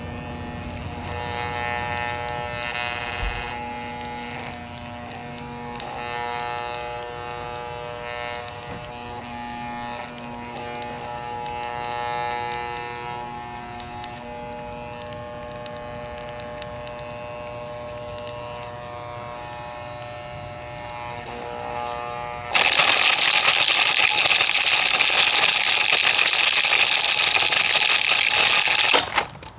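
Hamilton Beach 7 Speed Blendmaster blender motor running with the jar off, a steady electric whine that breaks briefly a couple of times. About 22 seconds in it turns much louder and harsher, runs that way for about six seconds, then cuts off abruptly.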